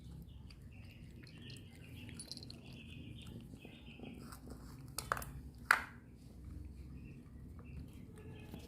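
Persian cats eating, with small chewing sounds and a string of faint, short high-pitched calls. Two sharp clicks come about five and six seconds in.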